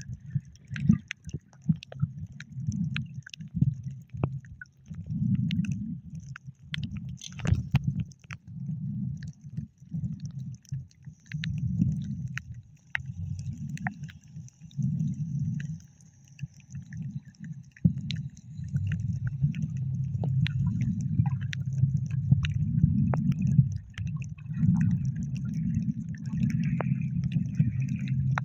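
Muffled water sloshing and gurgling, heard underwater, with a low uneven rumble that swells and fades and scattered sharp clicks.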